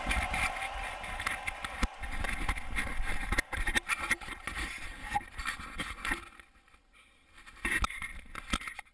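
Camera handling noise: gloves and jacket fabric rubbing and knocking against a GoPro HD's waterproof housing as it is taken off the chest mount and turned round, a run of irregular scrapes and knocks with a quiet gap about two-thirds of the way in.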